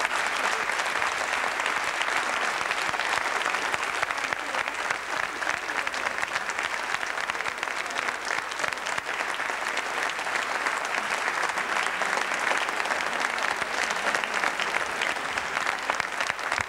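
A large audience applauding steadily and at length, a dense patter of many hands clapping in a big reverberant hall.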